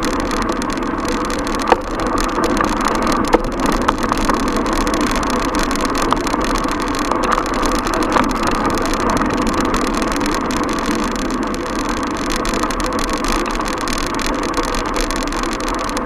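Steady street-traffic and road noise heard while riding a bicycle through city streets, with two sharp clicks in the first few seconds.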